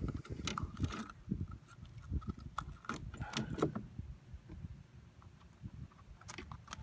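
Scattered clicks and light rattles of a fishing hook and lure being handled and worked free from a small crevalle jack's mouth.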